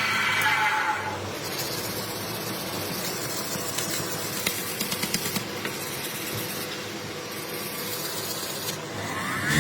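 A power tool's motor winds down in the first second, leaving a steady hiss with a few light clicks. Near the end a motor starts spinning up again with a rising hum.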